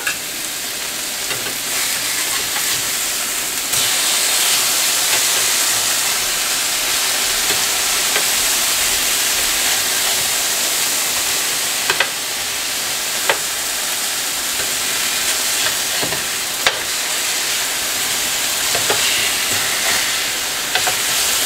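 Ground-beef burger patties sizzling on a hot griddle and being flipped with a metal spatula, with sharp scrapes and taps of the spatula on the griddle now and then. The sizzle gets louder about four seconds in.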